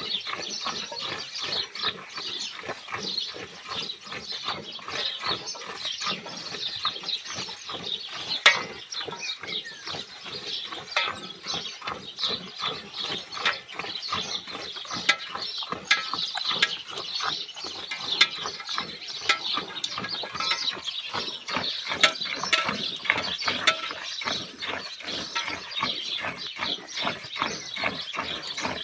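Cow being milked by hand: quick squirts of milk hissing into a steel bucket that already holds milk, several squirts a second, steady throughout.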